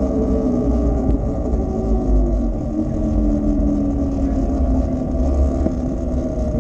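E-Ride Pro SS electric motorbike's motor and drivetrain whining and slowly falling in pitch as the bike eases off, over a steady low rumble of wind on the microphone.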